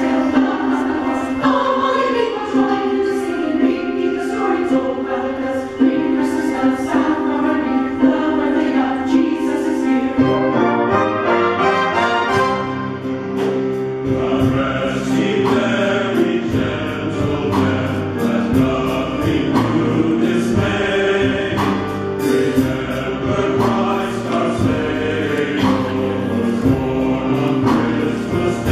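Mixed church choir singing with instrumental accompaniment. About ten seconds in, the sound fills out with a deeper low part.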